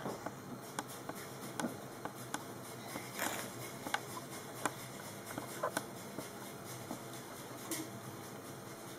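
Faint, irregular clicks and taps, roughly one or two a second, from hands and fingernails touching and sliding on a hard plastic surface, over a low room hiss.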